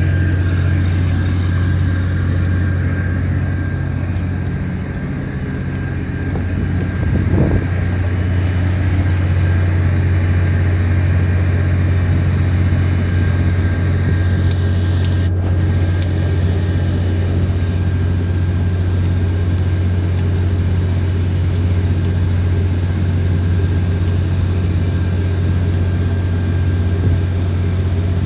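An engine running steadily at a constant speed, a low, even drone with faint scattered clicks over it.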